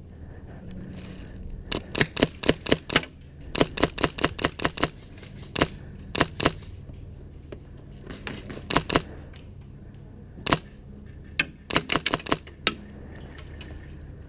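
Airsoft guns firing in quick strings of sharp snapping shots, with several bursts and a few single shots, separated by short pauses.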